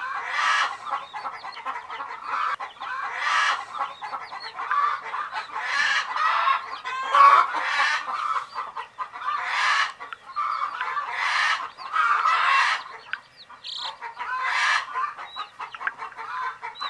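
A group of baby chicks chirping continuously, many small quick peeps overlapping. A harsher, noisier sound recurs roughly every second and a half over the chirping, with a brief dip about two-thirds of the way through.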